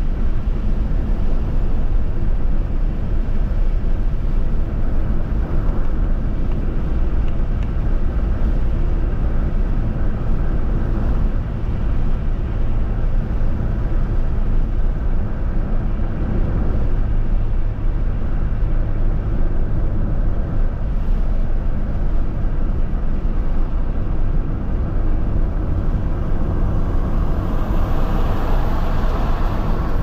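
Steady road and engine noise heard from inside a moving car, with a swell of rushing noise near the end.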